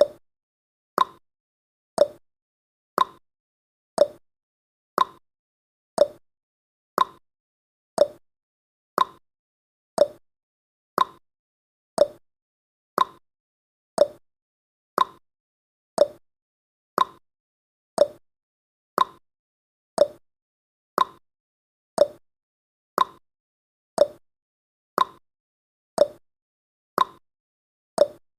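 Countdown timer's clock-ticking sound effect: one short, sharp tick every second, alternating between a slightly higher and a slightly lower tick like a tick-tock.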